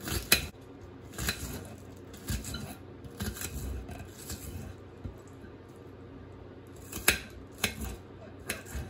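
Kitchen knife slicing onion on a ceramic plate, the blade clicking against the plate in irregular, scattered strikes.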